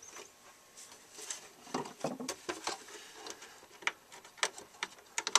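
Small plastic clicks and rattles of fingers working a fan cable's latched plug on a computer motherboard, squeezing its clip while the plug stays stuck. Sharper clicks come near the end.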